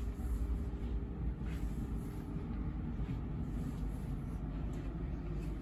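Steady low rumble and hum inside a stationary Intercity 125 (HST) passenger coach standing with its power cars running, with a faint steady tone and a few light clicks.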